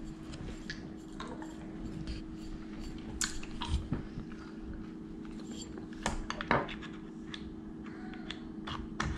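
Scattered small clicks and taps of hands handling a spinning reel's spool and fishing line, over a steady low hum.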